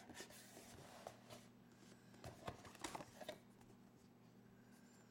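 Near silence with faint rustling and a few light clicks of a cardboard box being opened and its paper insert handled, over a faint low steady hum.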